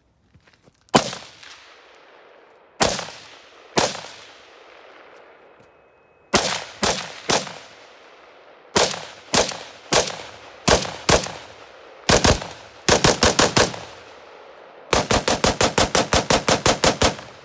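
5.56 AR-15 carbine with a 14.5-inch Colt barrel being fired: a few spaced single shots, then quicker shots in pairs and groups, then a burst of about six rapid shots and a final fast string of about fifteen shots, roughly seven a second. Each shot has a ringing tail.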